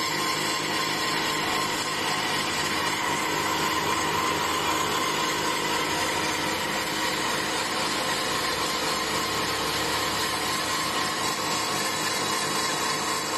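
CNC cutting machine running steadily as it cuts through a stack of corrugated cardboard, an even mechanical noise with a steady whine.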